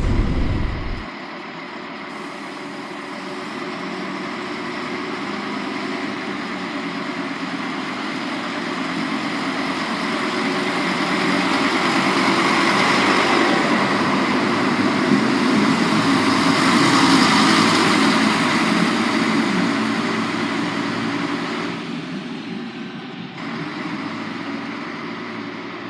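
A train moving through a railway station, its running noise and motor hum building to a peak about two-thirds in and then fading away.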